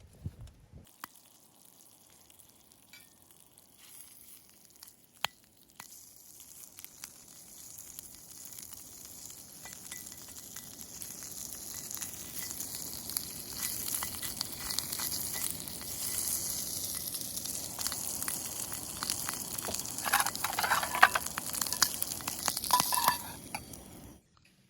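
Campfire catching and building up: a crackling hiss with many small pops that grows steadily louder, then cuts off suddenly near the end.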